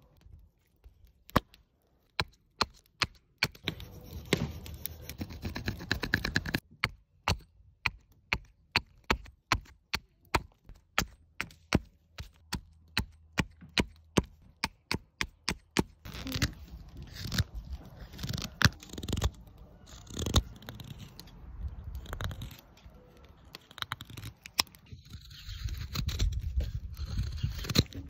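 A knife cutting and splitting a small piece of wood: a run of sharp clicks, about one or two a second, then closer, denser scraping strokes of whittling with low handling noise.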